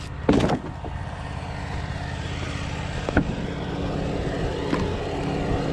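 Wood-Mizer LT35 sawmill's engine running steadily, growing slowly louder. Near the start a sawn wooden slab lands on the slab pile with a loud clatter, and there is a single smaller knock about three seconds in.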